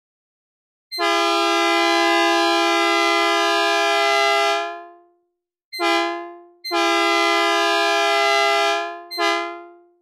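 Synthesized recreation of a Nathan P2 two-note train horn, its chord a minor third, sounding four blasts: long, short, long, short, each fading away at its end.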